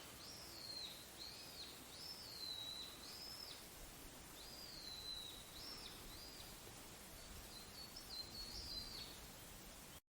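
A small songbird singing faintly, a steady run of repeated high, arching whistled phrases, with quiet outdoor background noise underneath.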